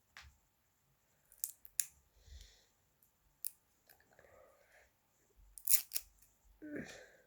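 Sharp clicks and snips with light rustling from handling a small eyeliner pencil and its tight packaging at close range, coming at irregular intervals with the loudest cluster near the end.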